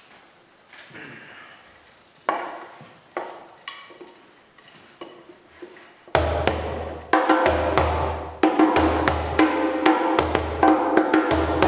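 Djembe played by hand. A few scattered, quieter taps and strokes come first; about six seconds in, a loud, fast, steady rhythm begins, mixing sharp slaps with deep bass notes.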